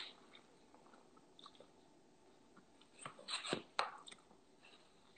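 A person chewing a mouthful of food close to the microphone, faint, with a run of louder mouth clicks and smacks about three seconds in.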